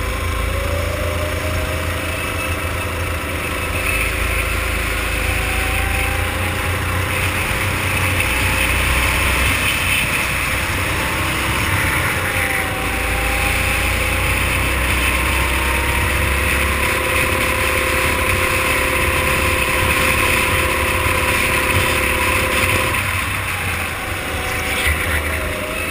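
Go-kart engines running at racing speed, heard on board one kart, their pitch rising and falling through the corners, with the engines of two karts just ahead close by.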